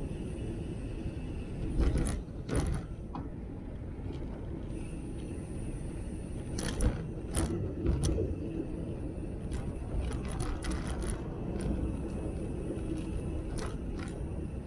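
Velomobile rolling along a cycle path: a steady low rumble from the ride, broken by scattered sharp clicks and rattles, a few of them in quick clusters.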